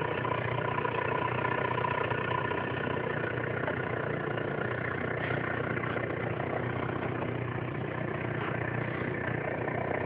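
Renault Sandero running with a steady, even engine and vehicle noise. The owner suspects a knock at the right rear, but no distinct knocks stand out in this stretch.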